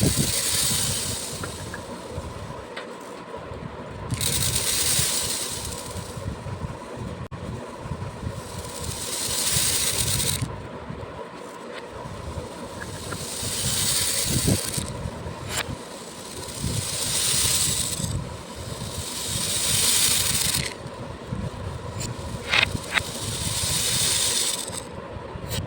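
Small beads poured in repeated streams, each pour a dense rattling patter of two to three seconds with short pauses between, about seven pours in all, and a few single clicks of beads landing near the end.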